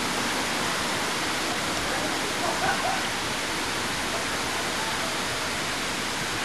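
Steady rush of water pouring down a water ride's flume chute, with faint voices about two to three seconds in.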